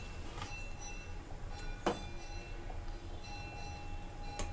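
Perforated steel ladle stirring rice through boiling liquid in an aluminium pot, with three light clinks of the ladle against the pot, the loudest about two seconds in, over a low steady rumble.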